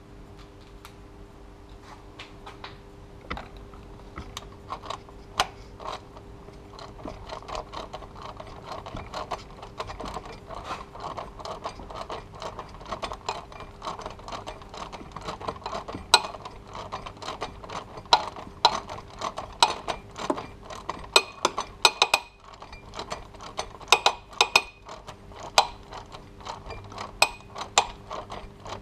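Hand ratchet clicking as a bolt on the serpentine belt tensioner is turned: scattered clicks at first, then a quick steady run of clicks, with louder, sharper clicks and clinks in the second half.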